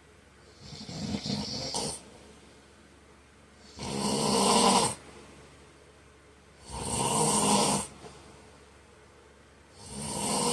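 A man snoring in his sleep: four loud snores, each about a second long, one roughly every three seconds, with quiet breathing gaps between.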